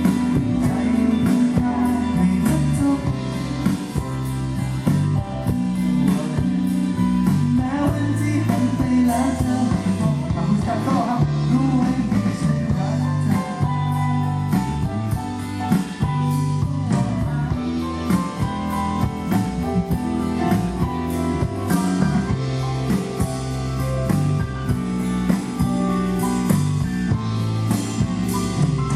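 Live band playing a pop ballad at a sound check: drum kit, bass and guitar with a singer's voice over them.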